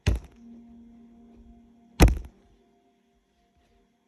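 Two sharp knocks about two seconds apart, with a faint steady hum between them.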